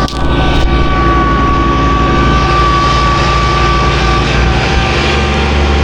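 Snowblower running steadily close by at high throttle: an engine drone with a steady high whine over it.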